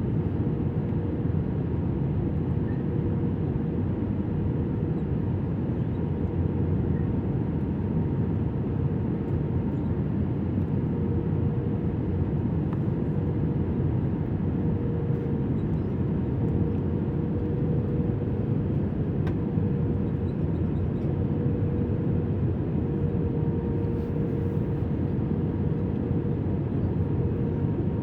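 Steady cabin noise of an Airbus A320-200 airliner in flight on descent: an even rush of engine and airflow noise, heaviest in the low range, with a faint steady hum.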